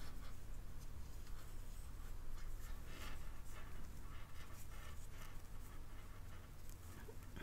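Faint, irregular scratching and rubbing of a crochet hook working doubled lace yarn, the yarn drawn through the loops stitch by stitch.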